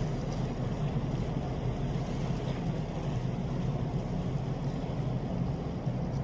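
Low, steady rumble of a large MOL M-class container ship under way close by, an even drone that neither rises nor falls.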